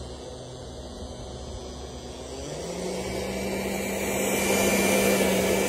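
An engine running steadily. About halfway through its pitch steps up and it grows louder and rougher.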